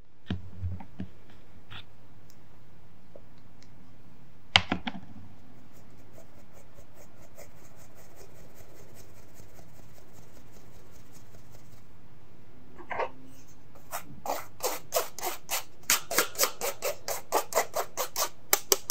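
A fine-mesh metal sieve of flour and cocoa powder being tapped and shaken over a glass mixing bowl to sift the powder through: one sharp knock about four seconds in, a few taps near the middle, then a quick, even run of taps, about four a second, toward the end.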